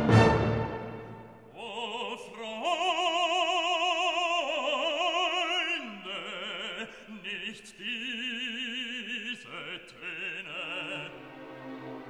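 Operatic singing: long held notes with wide vibrato over soft orchestral accompaniment, after a loud orchestral chord that dies away in the first second.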